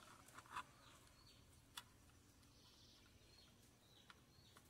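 Near silence, with a few faint plastic clicks as a retractable mouse cord's spring reel is handled, mostly in the first second.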